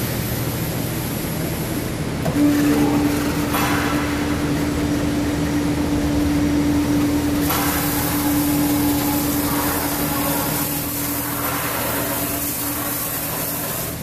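Rotary 24-head bottle washing machine running: a steady mechanical hum with a constant tone that sets in about two seconds in. Stretches of loud hissing from the rinse jets come and go as the grippers carry the inverted bottles round.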